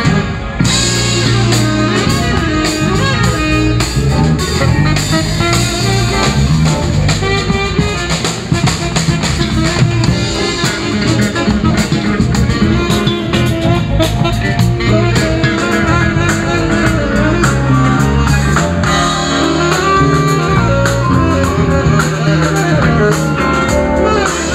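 Live band playing an instrumental tune, loud and steady, with drum kit and guitar.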